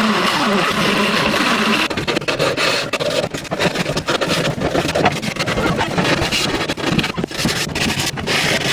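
An electric drill runs for the first two seconds or so, its pitch slowly falling. After that comes irregular scraping and rubbing by hand on a wooden cutting board.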